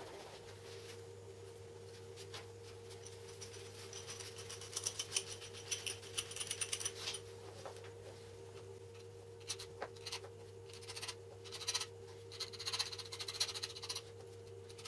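Thin metal screwdriver shaft scraping and tapping in glue on a small wooden block, in two bursts of quick small clicks and scratches, one in the middle and one near the end, over a steady low hum.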